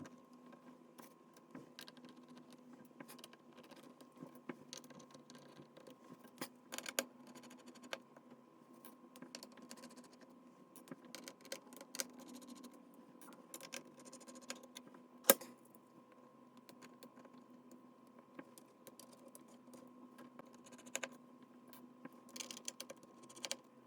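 Small scattered clicks and taps of hands and a small tool working on an opened laptop's internals, with one sharper click about fifteen seconds in, over a faint steady hum.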